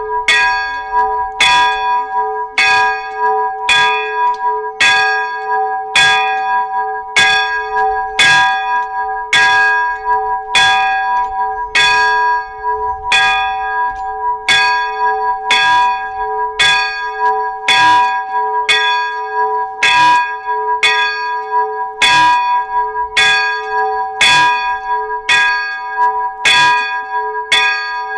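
A single church bell rung over and over in a steady rhythm, struck a little more than once a second, each stroke ringing on into the next at the same pitch.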